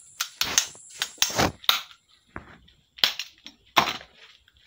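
Sharp knocks and clatters of objects being handled. There is a quick run of them in the first two seconds and a few more about three to four seconds in.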